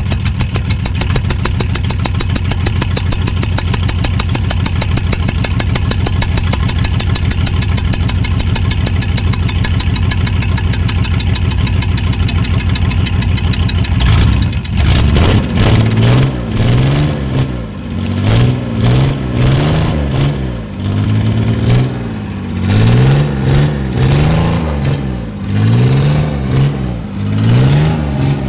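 Six-cylinder Volvo diesel engine, with only two of its glow plugs working, running with a steady, rapid beat. From about halfway it is revved up and down again and again.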